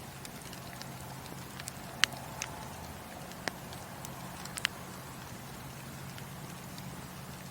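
Wood fire in a fireplace crackling: irregular sharp pops and snaps over a steady hiss, the loudest pop about two seconds in.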